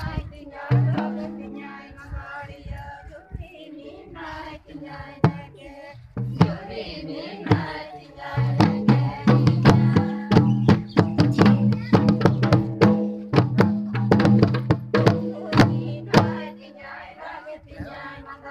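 Folk song sung by a group of voices over drum beats, with the drumming and singing growing louder about halfway through.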